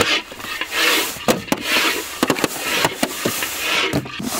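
Wooden sticks clicking and scraping against a large aluminium plate while hot sugar dough is pulled and stretched for soan papdi, giving repeated rubbing swishes broken by sharp clicks.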